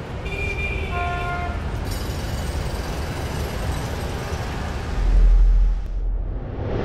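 Busy city street noise with traffic rumble. A vehicle horn sounds briefly near the start, and a deep low boom swells for about a second around five seconds in.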